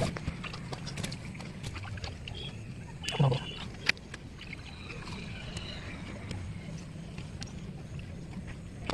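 Hands squeezing and kneading a heap of wet flour-and-bran fishing bait dough on a rock, with small scattered squelches and clicks over a steady low rumble. A brief louder sound comes about three seconds in.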